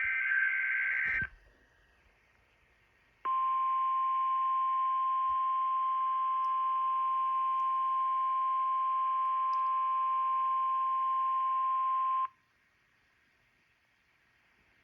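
NOAA Weather Radio's weekly test signal. A burst of SAME digital header tones ends about a second in. About two seconds later the 1050 Hz warning alarm tone sounds, one steady pure tone held for about nine seconds, then it cuts off, leaving faint receiver hiss.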